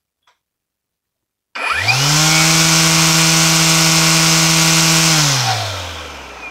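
EGO 16-inch cordless carbon fiber string trimmer run on its low-power setting. About a second and a half in, the motor and line head spin up quickly to a steady whine. Near the end the trigger is let go and the motor winds down with a falling pitch.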